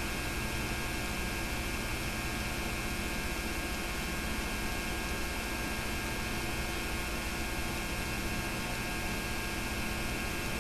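Steady electrical hum and hiss with nothing else: the background noise of a VHS transfer of silent home-movie film.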